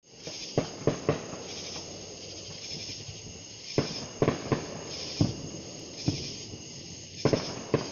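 Firecrackers or fireworks going off some way off: sharp, echoing bangs, several at a time in quick clusters of two or three. Night insects chirr steadily and high-pitched underneath.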